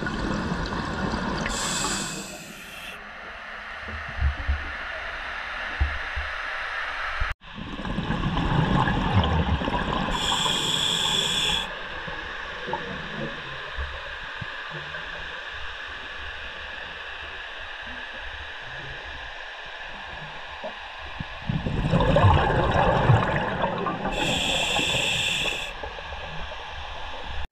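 Scuba diver breathing through a regulator underwater: three slow breaths, each a rush of exhaled bubbles followed by a brief hissing inhale through the regulator.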